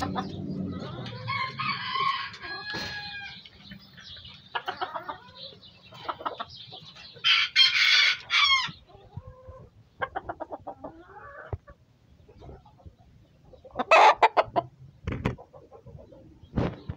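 Gamecock roosters clucking in the coop, with a loud crow or squawk about halfway through and another loud call near the end.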